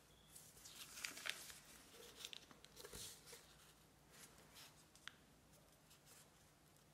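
Faint rustling and brushing of a sheet of origami paper being folded and pressed flat by hand, busiest in the first three seconds, with a light tick about five seconds in.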